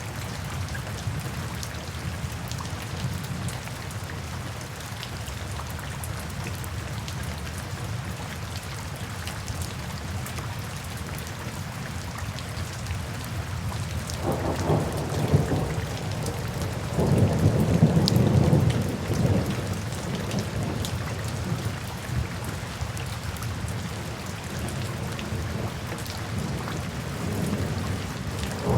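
Steady rain falling, with thunder rumbling twice about halfway through: a shorter roll, then a longer, louder one lasting a few seconds.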